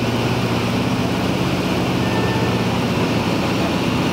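Lockheed Super Constellation in flight, heard from inside the cabin: the steady drone of its Wright R-3350 radial piston engines and propellers, a loud even roar with a constant low hum.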